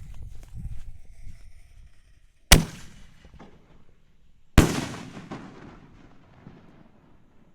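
A 5-inch canister shell firework: a sharp bang of the lift charge about two and a half seconds in, then the shell bursting about two seconds later with a long rolling echo, like thunder.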